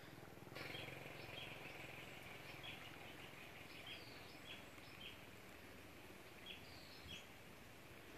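Faint outdoor ambience of small birds chirping: short chirps repeated every half second or so, with a few falling whistles, over a steady high hiss that starts about half a second in.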